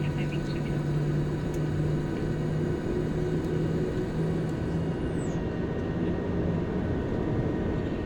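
Cabin noise of a Boeing 737-700 rolling on the ground after landing: its CFM56 jet engines and airflow make a steady rumble with a low hum. A faint high whine drops in pitch and stops about five seconds in, and the hum fades soon after.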